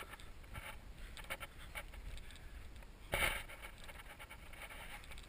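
Footsteps crunching on loose talc rubble, a string of short irregular crunches with one louder knock or scrape about three seconds in.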